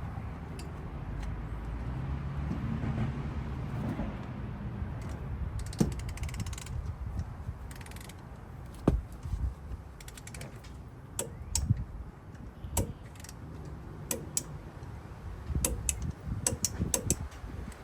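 Socket ratchet clicking, with sharp metal clicks and knocks, as brake caliper bolts are run in and tightened; the clicks come scattered from about six seconds in and bunch up toward the end.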